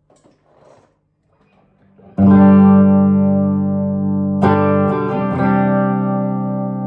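Amplified 1968 Gibson SG Junior electric guitar with its single P90 pickup: a chord struck about two seconds in and left to ring, then a second chord about halfway through that rings on and slowly fades.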